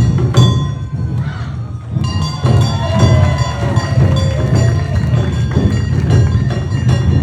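Awa Odori festival music played live: taiko drums beating a steady rhythm with a small kane gong ringing over it, and a wavering melody line rising and falling near the middle.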